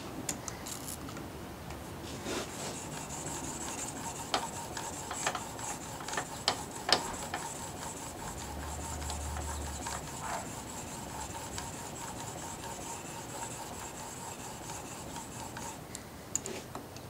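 A steel blade held in a wheeled honing jig being rubbed back and forth on a diamond sharpening plate: a steady rasping of steel on abrasive, with scattered clicks. The strokes stop about a second before the end.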